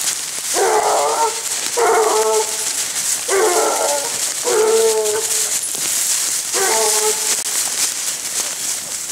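Basset Bleu de Gascogne hounds baying: five drawn-out, ringing cries, each under a second, as the hounds give tongue while running a scent line.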